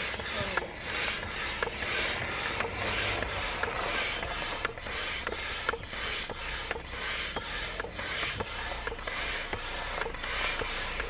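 Manual air pump inflating an inflatable boat: repeated hissing strokes of air, about one a second, with small clicks of the pump's handle.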